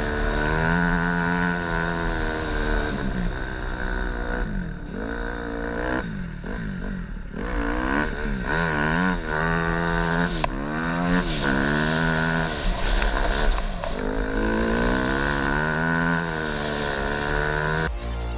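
Dirt-bike engine of a snow bike conversion running under load while being ridden, its pitch repeatedly rising as the throttle is opened and dropping back as it is let off or shifted.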